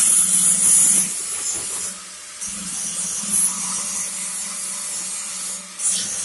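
Small petrol engine running steadily on a test run, driving a grass chopper, with a loud hissing whir over a low hum. It dips briefly about two seconds in.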